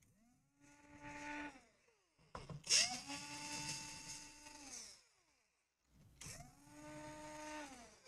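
Cordless electric drill/driver backing screws out of a laptop's bottom case: three short runs of motor whine, each rising in pitch as the motor spins up and falling as it stops.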